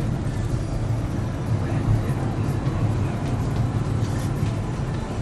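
Steady low rumble of road and engine noise inside the cabin of a moving minivan.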